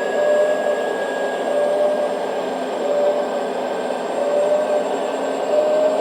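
1/10-scale RC hydraulic bulldozer working its blade hydraulics: a steady whirring from its electric hydraulic pumps, with a short higher note that repeats about every 1.3 s.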